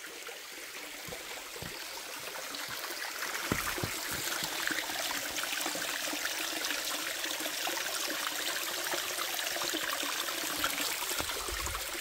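Shallow mountain stream trickling and splashing over small rock ledges, a steady light water noise that grows louder over the first few seconds.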